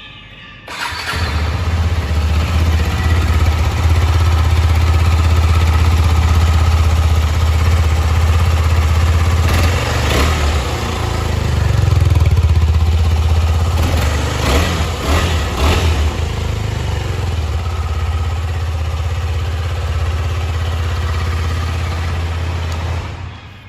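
KTM 250 Adventure's single-cylinder engine and exhaust, starting about a second in and idling steadily, with a few throttle blips in the middle before it stops near the end.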